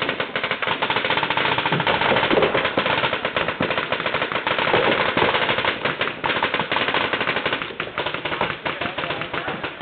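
Paintball markers firing rapidly and without a break, a dense run of sharp pops many times a second.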